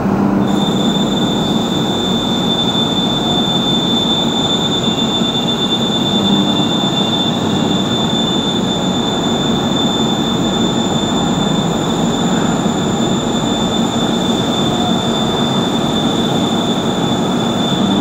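Doosan Puma MX2500 CNC turning centre running: a steady machine noise, with a high whine that starts abruptly about half a second in and then holds steady.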